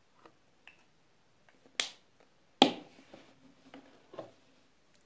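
Two sharp clicks close to the microphone, a little under a second apart, with a few fainter ticks and taps around them.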